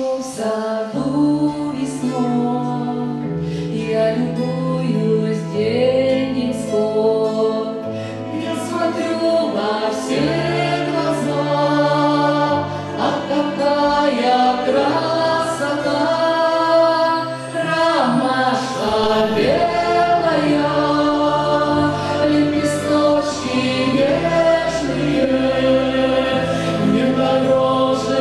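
A woman and a man singing an Orthodox spiritual song together over instrumental accompaniment. The accompaniment holds long low notes that change every couple of seconds.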